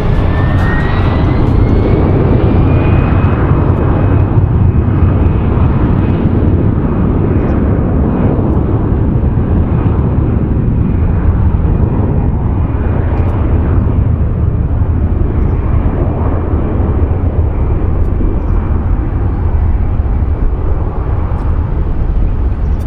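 Airbus A320-214 jet engines at high power on the takeoff roll: a whine that rises over the first few seconds, then holds steady, over a continuous loud roar.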